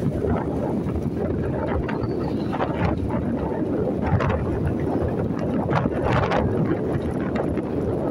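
Wind buffeting the microphone of a phone carried on a moving motorcycle, a steady low rumble of rushing air and road noise with brief gusty flurries throughout.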